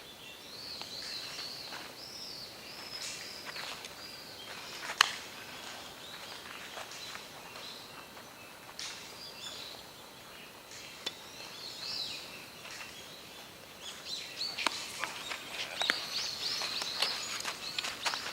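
Outdoor ambience with birds chirping on and off, busier near the end. A single sharp crack stands out about five seconds in.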